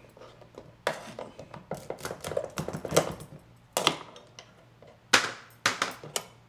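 Knife cutting through cooked lobster knuckle shells on a wooden butcher-block board: about six sharp, irregular knocks of the blade against the board, with shell handling between them. The loudest knock comes about five seconds in.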